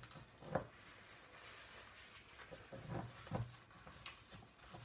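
Faint rubbing of a paper towel wiping the rim of a glass jar, with a few soft short sounds: one about half a second in and two close together about three seconds in.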